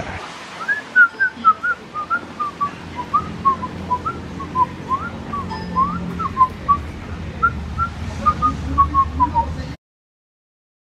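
A person whistling a tune of short notes, two or three a second, that glide up and down in pitch. It stops abruptly just before the end.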